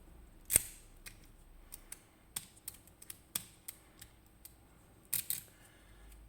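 Small sharp clicks and taps of a Medeco M4 high-security lock and its key being handled close to the microphone: one louder click about half a second in, a run of lighter ticks in the middle, and a quick double click near the end.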